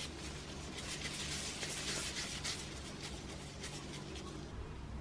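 Kitchen food-preparation sounds: dense, irregular scraping and rustling that thins out near the end, over a low steady hum.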